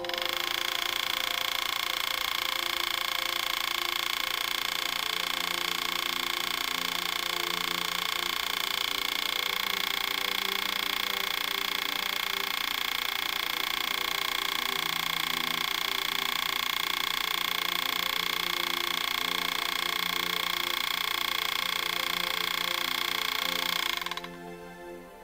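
A machine running steadily with a constant whine and hiss. It cuts in abruptly and stops abruptly near the end.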